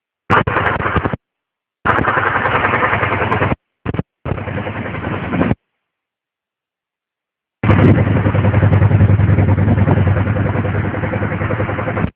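2002 Suzuki SV650S V-twin engine running with a rhythmic tok-tok-tok knock, which the owner places near the water pump. The sound cuts off abruptly to silence several times, the longest gap about two seconds, roughly halfway through.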